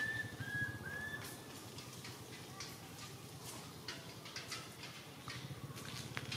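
Three short high whistle-like calls in quick succession in the first second or so, each rising then holding its pitch, followed by scattered clicks and rustles.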